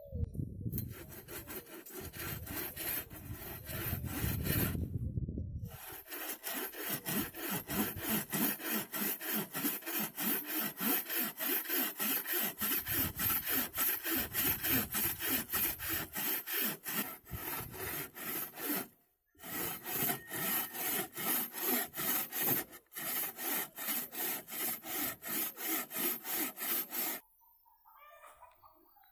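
Bow saw cutting through a pallet board by hand, in even back-and-forth strokes about two a second. Three brief pauses break the strokes, and the sawing stops shortly before the end once the board is cut through.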